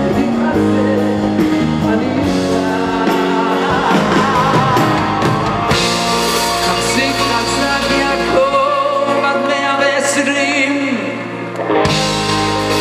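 Live Hasidic pop concert music: male lead vocals with vibrato sung over a full band, in a large hall.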